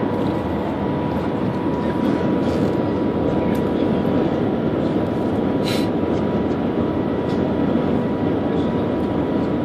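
Steady rushing noise inside the cabin of the Shanghai Maglev train running at high speed, with a thin steady high tone over it and one brief click a little over halfway.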